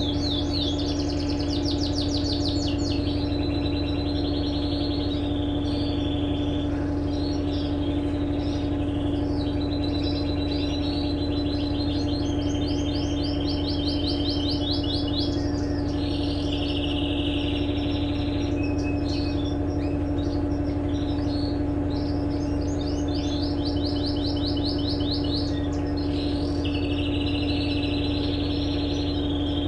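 Electrolux LTE12 washing machine running with a steady, even hum and a constant tone. Over it a bird chirps and trills again and again, in fast rapid-note phrases every few seconds.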